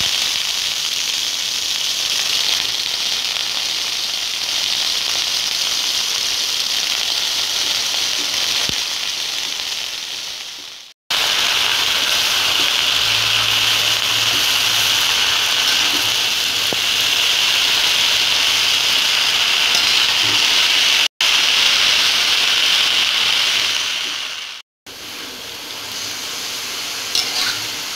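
Freshly washed water spinach (kangkung) sizzling loudly in hot oil in a wok as it is stirred: a steady hiss from the wet leaves hitting the oil. The hiss is broken by brief silences about eleven and twenty-five seconds in.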